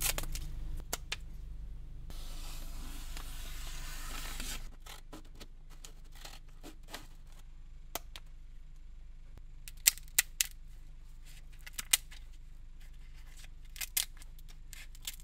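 Arsenal multi-function scissors cutting through different materials: a few seconds of steady rasping cutting noise near the start, then a scatter of separate sharp snips.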